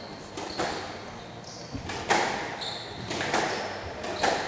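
Squash rally: the ball smacked by rackets and off the court walls in a series of sharp, echoing cracks about a second apart, with short high squeaks of shoes on the wooden court floor.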